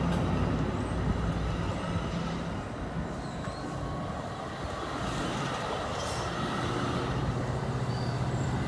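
New Jersey Transit MultiLevel bilevel commuter coaches rolling past: a steady rumble of steel wheels on the rails, with a low hum that grows stronger in the second half.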